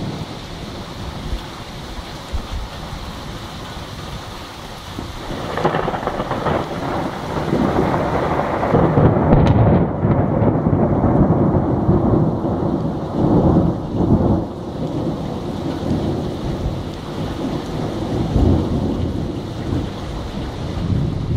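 Thunderstorm: a long roll of thunder over steady rain. The rumble builds about a quarter of the way in, is loudest near the middle, then dies away, with a smaller swell near the end.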